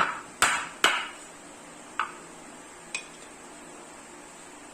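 Five sharp knocks of hard objects struck together, each ringing briefly: three in quick succession within the first second, then two more about a second apart.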